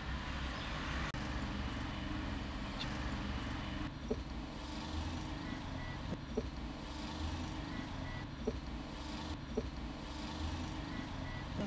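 Steady engine and tyre noise of a car driving along a road, with a few faint short blips scattered through it.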